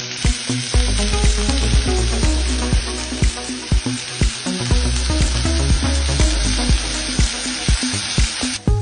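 Food sizzling and frying in a hot pan, a dense steady hiss, over background music with a steady beat; the sizzle cuts off suddenly near the end.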